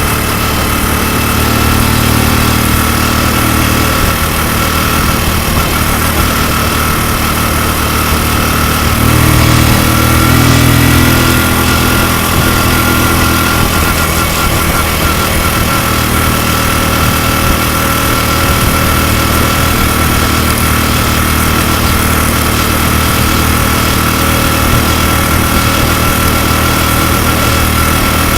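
Bored-out 105 cc Honda Super Cub 90 single-cylinder four-stroke engine idling steadily, revving up briefly about nine seconds in and then settling back to idle. It is running with a manual cam chain tensioner fitted to cure a ticking noise from a slack cam chain.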